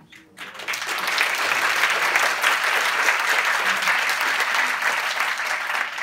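A large seated audience applauding steadily, the clapping starting about half a second in.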